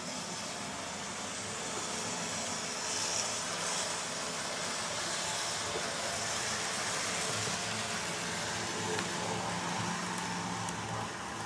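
Model train running on the layout's track: the locomotive's small electric motor whirring and the wheels rumbling along the rails, a little louder while the coaches pass close by.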